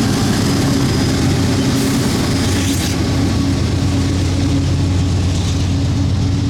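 CSX diesel-electric freight locomotives running steadily under power as the train pulls past, a deep engine drone with low steady tones and a brief hiss about two seconds in.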